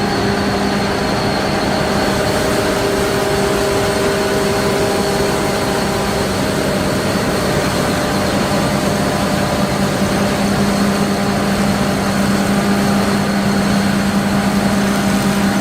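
John Deere 1000 Series crawler combine harvester running steadily: a loud, even machine drone with a constant low hum that grows stronger in the latter half.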